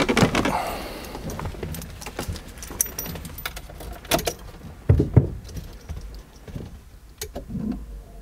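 Irregular clicks and knocks with keys jangling and a car door. The Peugeot 205's engine does not start and no engine note is heard, because the battery is flat.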